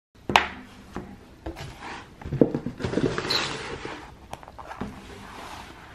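Books being handled on a table: a sharp knock as one is set down, more knocks, then a rustle of paper covers over a second or so.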